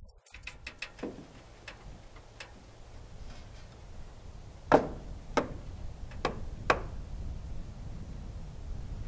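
Sharp metal clicks and taps as the parts of a round through-wall chimney thimble are fitted together by hand: a few light ones, then four louder ones in quick succession about halfway through, over a low steady rumble.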